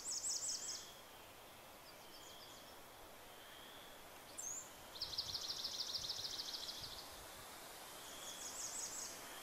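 A small songbird singing rapid, high-pitched trills of evenly repeated notes: a short one at the start, a longer one of about two seconds in the middle, and another near the end, over a faint steady hiss.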